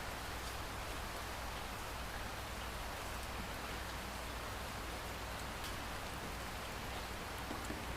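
Steady rain falling on a surface, an even hiss with a few sharper drop ticks here and there.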